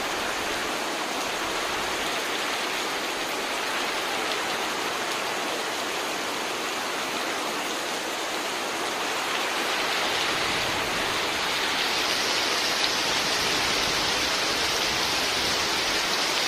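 Heavy rain pouring steadily onto the river and the covered wooden boats, swelling louder about ten seconds in.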